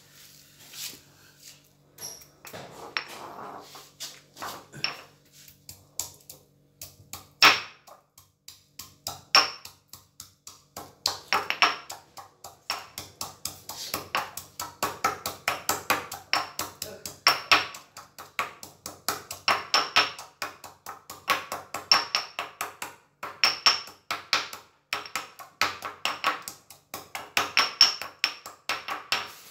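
Pestle pounding a spice paste in a small mortar: a few separate knocks at first, then steady pounding from about ten seconds in at about three strokes a second, each stroke with a short high ring.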